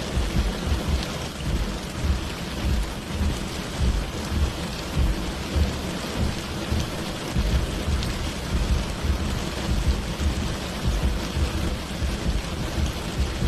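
Heavy rain pouring steadily, with a continuous low rumble under the hiss.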